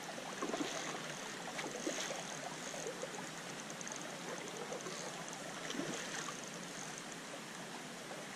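River water flowing and lapping around a wading angler: a steady wash of moving water with a few faint small splashes scattered through it.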